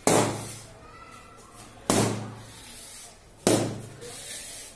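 Three balloons popped with a pin, one after another, about a second and a half to two seconds apart; each pop is sharp and loud and dies away quickly.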